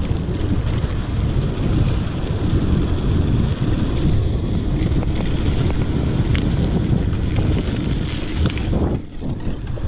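Mountain bike rolling along a dirt and gravel track: wind buffeting the camera microphone over a steady rumble of tyres on the ground, with scattered clicks and rattles. The noise eases a little near the end.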